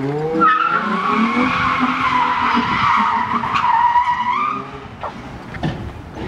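A car's engine revs up, then its tyres squeal loudly for about four seconds as the car slides out, the squeal wavering in pitch over the engine note before it dies away near the end.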